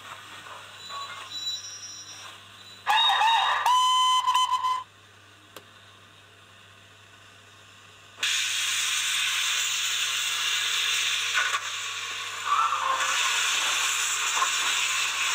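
Recorded steam-locomotive sounds for an LSWR M7 tank engine played by a Zimo MX648 DCC sound decoder through a sugar cube speaker in a Hornby model. A whistle sounds about three seconds in and lasts about two seconds. After a short quiet gap, a loud steady steam hiss starts about eight seconds in.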